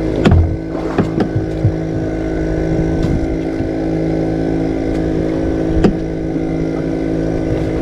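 Steady drone of a motor running aboard a small wooden fishing boat, with a few sharp knocks and clicks of gear on the deck, the loudest a thump just after the start.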